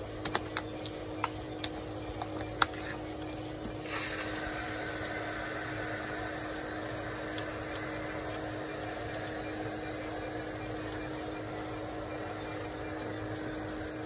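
A few sharp clicks as a hose-end coil-gun sprayer is handled and coupled to the hose. About four seconds in, a steady hiss starts as the sprayer sprays Nu-Calgon Nu-Brite foaming cleaner down into the condenser coil.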